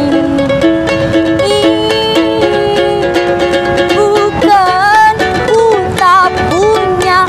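Instrumental music: a plucked-string melody of steady, separate notes, joined about four and a half seconds in by a wavering lead melody with vibrato.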